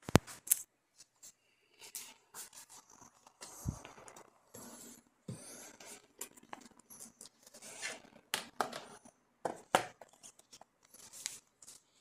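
Hands handling cardboard-sleeved Blu-ray/DVD cases on a wooden table: irregular sharp clicks and taps, with short stretches of sliding, scraping and rustling.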